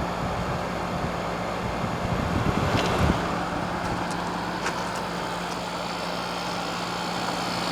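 1996 Whirlpool Coolerator 7000 BTU window air conditioner running on low cool with its compressor on: a steady hum under the rush of its fan, with a few faint clicks.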